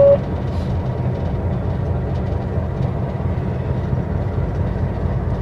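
Diesel-electric engine of a CC 206 locomotive running steadily under way, heard from inside the cab as a heavy low rumble with rail and wheel noise. A steady horn blast cuts off right at the start.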